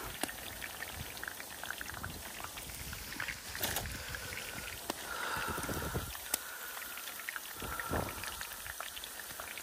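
Pakoras deep-frying in hot oil in a steel karahi: a steady crackling sizzle, with a few sharp clicks of the metal slotted spoon against the pan. A faint high-pitched call rises above it about five seconds in and again near eight seconds.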